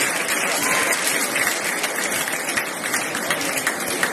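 Boxing crowd applauding: many scattered claps over a steady crowd noise.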